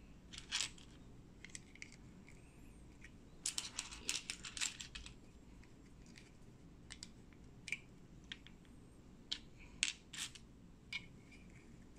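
Small plastic building bricks clicking as they are handled and pressed together: scattered sharp clicks, with a quick flurry of them about four seconds in and a few more toward the end.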